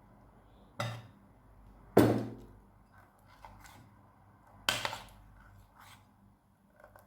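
Kitchen items being handled: three sharp knocks, the second the loudest, each with a short ring, and a few light clicks between them.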